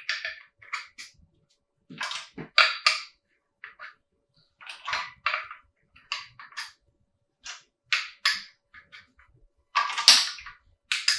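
Small metal engine parts clinking and knocking as they are handled and set down on a hard surface: irregular sharp clicks, some in quick clusters, with short pauses between.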